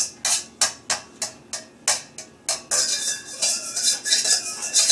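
A utensil banging and scraping inside a stainless steel colander, a child stirring it as if cooking. About three sharp clanks a second for the first two and a half seconds, then quicker continuous scraping and rattling.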